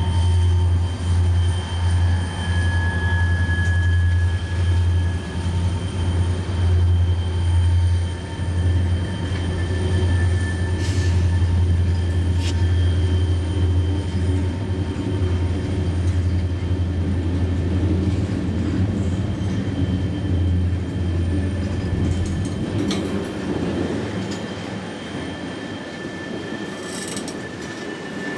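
A freight train of tank cars and boxcars rolling past: a steady low rumble of wheels on rail, with thin, high wheel-squeal tones over it. The rumble drops away over the last few seconds.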